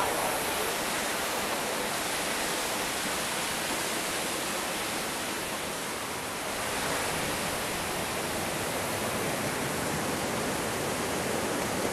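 Steady rushing of flowing water, an even hiss-like noise with no breaks.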